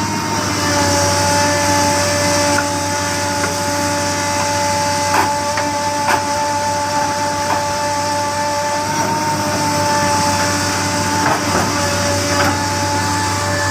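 Excavator's diesel engine running steadily under load, with a steady high whine over it and a few sharp knocks of the bucket or boom working the ground.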